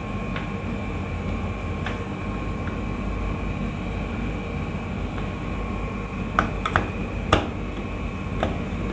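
Hands handling wires, contactors and a screwdriver on a workbench: a few sharp clicks and taps, a cluster of them about six and a half to seven and a half seconds in and one more near the end, over a steady background hum with a faint high whine.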